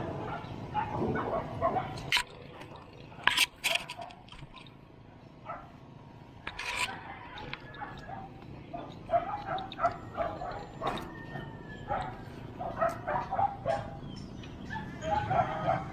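Short animal yelps in clusters of a few at a time, with several sharp clicks and knocks between them.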